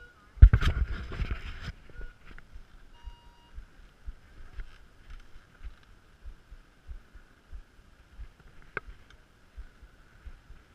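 Gloved hands rubbing and knocking against a helmet-mounted action camera for about a second near the start, then faint low thumps from the rider shuffling his bike along a wooden start deck, with a single sharp click near the end.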